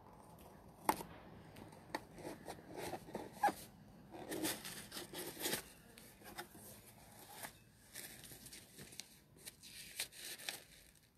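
Cardboard box being opened and the paper and tissue inside handled: irregular rustling and scraping with a few sharp clicks of cardboard.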